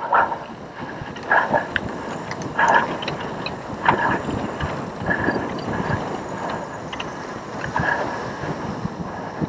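Cyclocross bike riding fast over rough grass: wind on the microphone and a steady rumble and rattle from the bike, with a short rush of sound about every second and a quarter.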